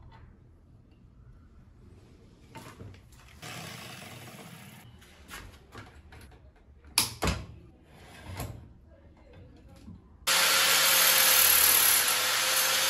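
Angle grinder running loud and steady from about ten seconds in, grinding a stainless steel bolt. Before it, light tool handling with one sharp metal clank about seven seconds in.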